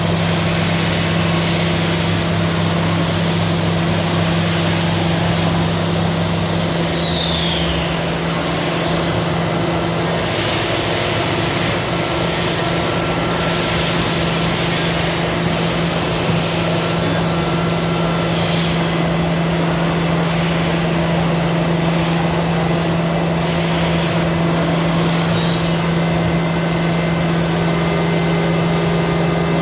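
CNC machine running, with a steady low hum and rushing noise under a high whine. The whine winds down about seven seconds in and spins back up two seconds later. It winds down again around eighteen seconds and back up near twenty-five seconds.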